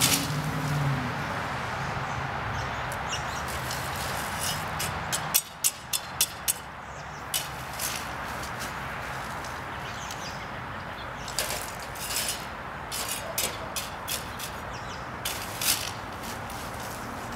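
Short scraping strokes of a broom on the ground, sweeping debris, coming in irregular bursts over a steady outdoor background hiss that drops suddenly about five seconds in.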